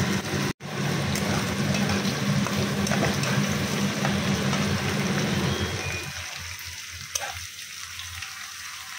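Sliced onions sizzling in hot oil in a kadai, stirred with a spatula, over a steady low hum that drops away about six seconds in, leaving a quieter sizzle. A brief gap in the sound about half a second in.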